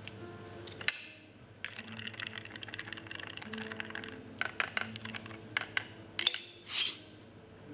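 Slow background music with long held low notes, under a scatter of sharp clinks and clicks of small hard objects, such as coins or crockery, handled on a café counter, coming thickest between about four and a half and seven seconds in.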